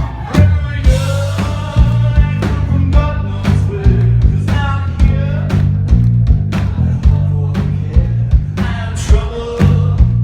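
Live rock band playing with a male voice singing over a steady drum beat and bass line, heard loud from the audience.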